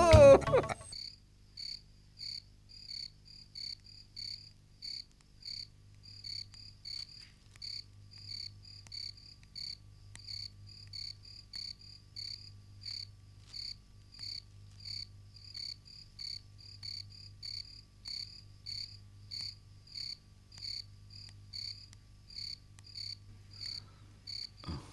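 Night chirping from a small creature: a short, sharp chirp repeated evenly about twice a second, over a faint steady low hum.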